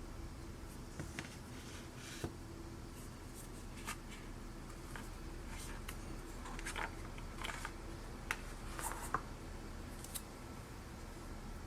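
Scattered light clicks, taps and brief rustles of small objects and packaging being handled by hand, over a steady low room hum.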